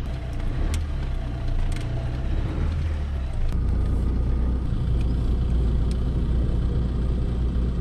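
Steady low rumble of a car driving, engine and road noise heard from inside the cabin, with a few faint clicks. It gets slightly louder about three and a half seconds in.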